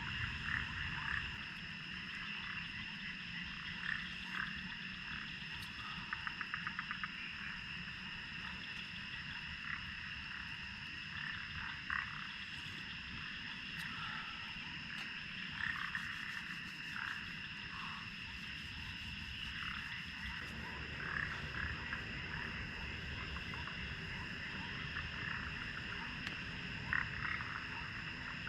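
Frogs calling in a chorus: short croaks repeating every second or two over a steady high-pitched drone, with a quick run of calls about six seconds in.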